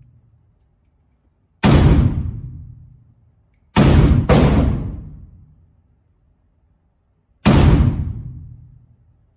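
Polish Hellpup AK pistol in 7.62×39 mm firing four single shots, the second and third about half a second apart. Each shot rings on in a long echo off the indoor range.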